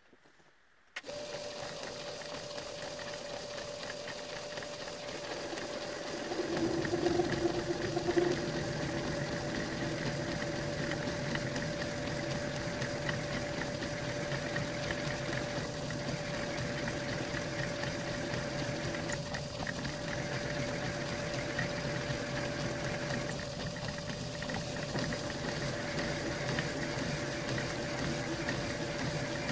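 Machine spindle starting up about a second in and running steadily with a constant hum, then an end mill biting into the metal arbour about six seconds in: the sound of a milling cut, louder and fuller, with a brief louder spell soon after the cut starts, then steady cutting.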